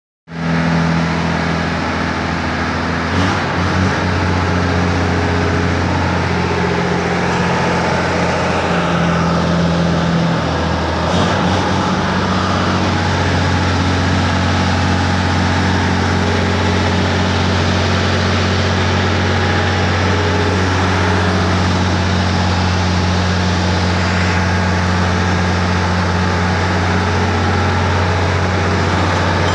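Toyota Hilux pickup with its engine running, a steady low hum throughout. There are a few brief knocks about three to four seconds in and again about eleven seconds in.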